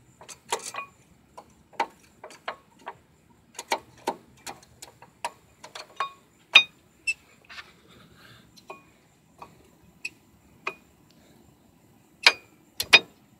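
Irregular sharp metallic clicks and clacks of new brake pads being fitted into the caliper bracket and its clips, with a few louder knocks near the end.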